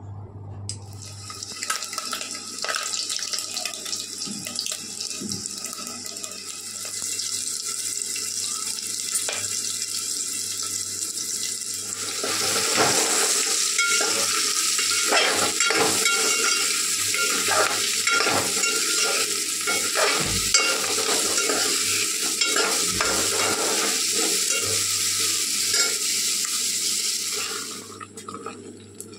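Soya chunks frying in hot oil in an aluminium pot, a steady sizzle that grows louder about twelve seconds in, with a metal spoon stirring and scraping against the pot. The sizzle drops away near the end.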